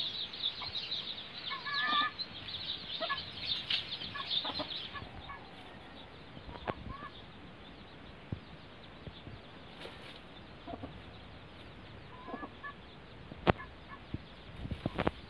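A brood of desi chicks peeping together in a dense, high-pitched chorus while the mother hen clucks. The peeping stops about a third of the way in, leaving scattered soft clucks and chirps and one sharp click near the end.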